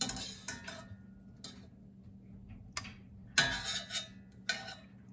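Metal kitchen tongs and then a spoon clinking against a stainless steel pan, a handful of sharp ringing clinks about a second apart, the loudest about three and a half seconds in.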